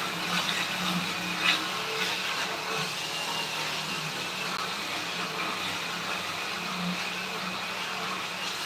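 A motor running steadily, with one short knock about one and a half seconds in.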